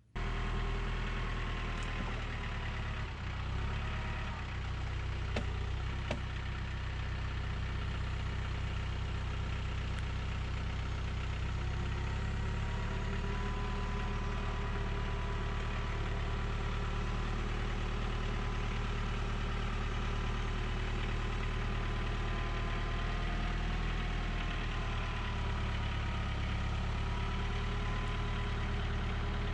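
An engine running steadily at an even speed, with a few faint clicks in the first several seconds.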